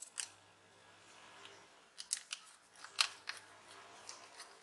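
Small sharp clicks and taps of a solid-state drive being handled and fitted into the laptop's drive bracket, a scattered handful, the loudest about three seconds in.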